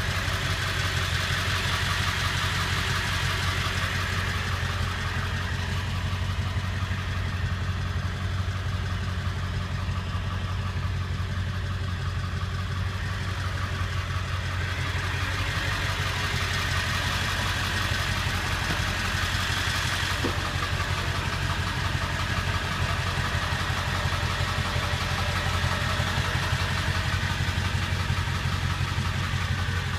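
A 1999 Ford F-350's 7.3-litre Power Stroke turbo-diesel V8 idling steadily, heard from inside the cab.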